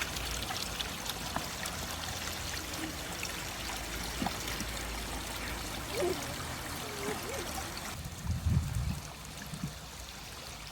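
Steady running water of a stream or river, trickling and gurgling, easing a little about eight seconds in, with a low bump around the same time.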